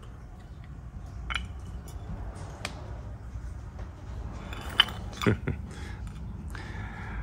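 Light clicks and clinks of a metal engine piston being handled and turned over in the hands, a few scattered knocks over a low steady background hum.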